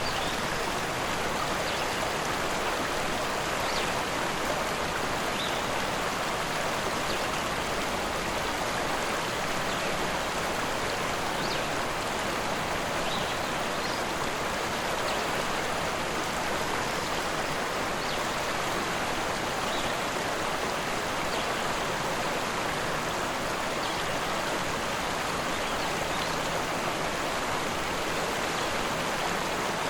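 A rushing river: a steady, even rush of flowing water.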